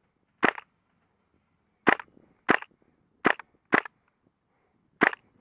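Airsoft guns firing single shots: six sharp pops at irregular spacing, some close together and some over a second apart.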